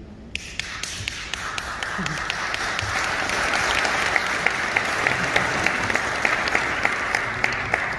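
Audience applauding, starting about a third of a second in and swelling over the next few seconds, with sharp claps close by standing out from the crowd.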